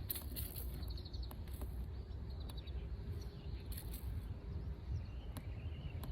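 Outdoor ambience: a steady low rumble with faint scattered clicks, and a few faint bird chirps near the end.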